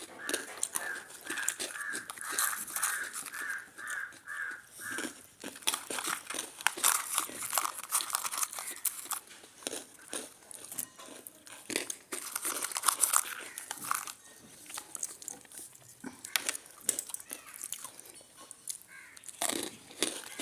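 Biscuit dip sticks being bitten and chewed: a run of crisp crunches with some crinkling of packaging. A repeated high chirping pulse, about two a second, runs through the first five seconds.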